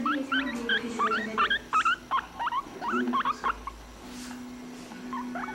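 Guinea pig squeaking: a quick run of short, rising squeaks, several a second, that thins out after about three and a half seconds.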